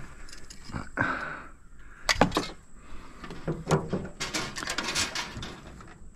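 Irregular knocks, clicks and rattles of air-conditioner parts and wiring being handled and pulled apart by hand, with rustling in between.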